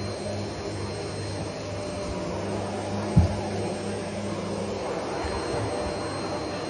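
Vacuum cleaner running with a steady whooshing noise and low hum, with one short thump about three seconds in.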